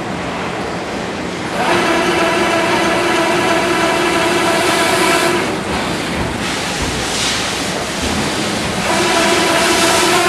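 Rottler H75A CNC vertical honing machine diamond-honing the cylinder bores of a four-cylinder aluminum engine block. A steady hiss runs throughout. Over it, a pitched whine comes in about a second and a half in, drops away around the middle and returns near the end.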